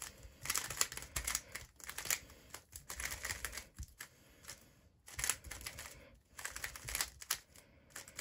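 QiYi Valk 3 Elite 3x3 speedcube being turned rapidly in the hands: quick runs of light plastic clicking and clacking as the layers turn, broken by brief pauses.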